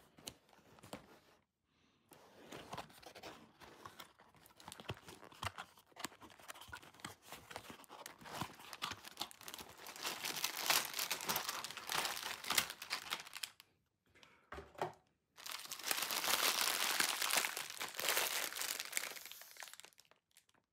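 LEGO set packaging being torn open and crinkled by hand, in irregular crackling bursts. After a short pause about two-thirds of the way through, a longer, louder run of crinkling follows.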